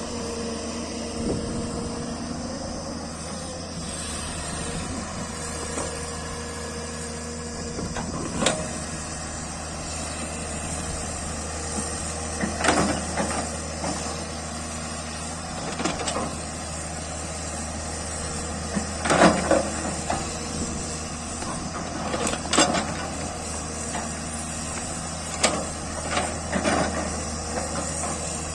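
JCB backhoe loader's diesel engine running steadily, with irregular sharp metallic knocks and clatters from the machine working, several grouped near the middle and toward the end.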